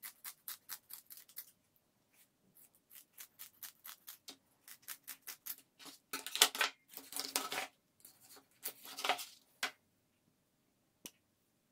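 Kitchen scissors snipping the fins off a flounder: runs of short, quick snips, louder and longer about six to seven seconds in and again around nine seconds, then a few single clicks.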